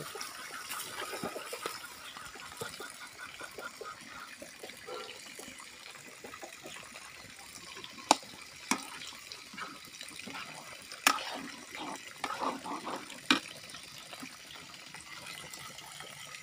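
A large pan of mung bean soup bubbling at the boil over a wood fire, a steady watery bubbling, with four sharp clicks between about eight and thirteen seconds in.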